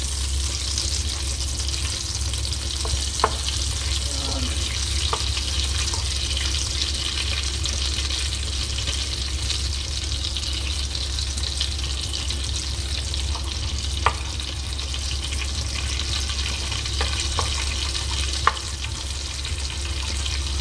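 Butter sizzling and foaming as it melts in a nonstick wok over low heat, stirred with a wooden spatula, with a few sharp clicks now and then. A steady low hum runs underneath.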